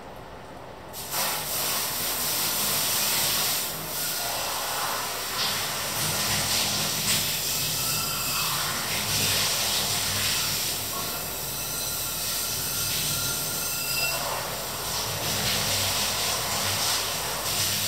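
A pot of milky liquid boiling on an electric hob. There is a steady, wavering noise that comes up about a second in, with brief squeaks here and there.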